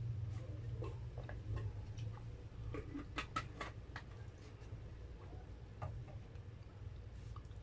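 Light, scattered clicks and ticks from eating at the table, with a quick run of sharper ticks about three seconds in, over a steady low hum.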